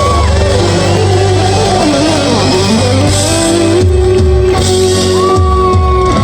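Live rock band playing loudly: electric guitar and a held melody line over bass and drums.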